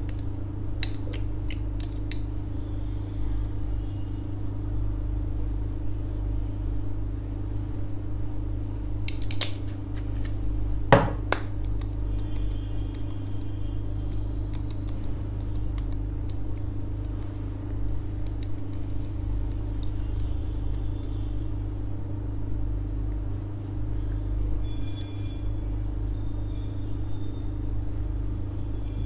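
Steady low hum, with a few light clicks and taps scattered through it; the sharpest click comes about eleven seconds in.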